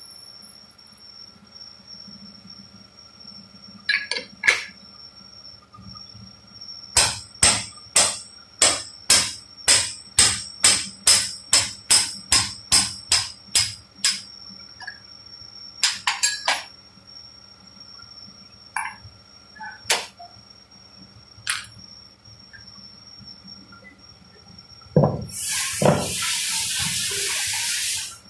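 Workshop machinery whining steadily while a hammer strikes metal in a quick regular run, about two to three blows a second for some seven seconds, followed by a few scattered knocks. Near the end a loud, steady hiss of blowing air or spray starts after a couple of thuds.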